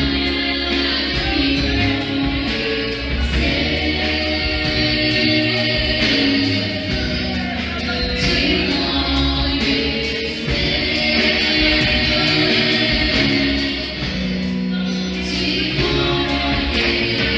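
Gospel worship music: several voices singing together over a band with bass and a steady beat.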